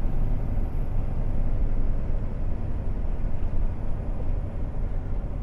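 Semi-truck running down the road: a steady low rumble of engine and road noise.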